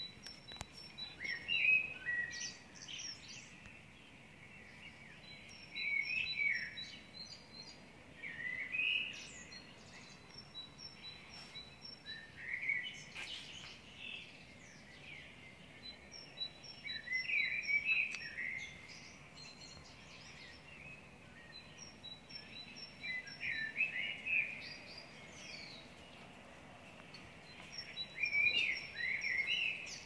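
Songbirds singing: a clear warbling phrase comes every few seconds, with series of thin, short high notes in between.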